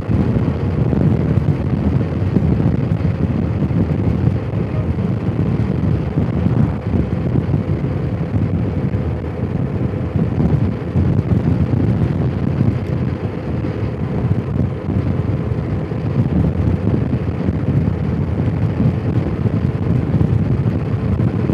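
Wind buffeting the microphone on a moving Honda CRF250 Rally, with the bike's single-cylinder engine running steadily underneath at an even riding pace.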